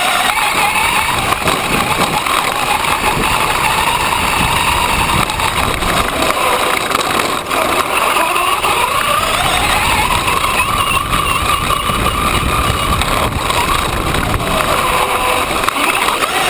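Brushless electric motor of a Traxxas E-Revo RC truck whining, its pitch rising and falling with the throttle, over the rumble and rattle of the truck running over rough ground, heard from on board.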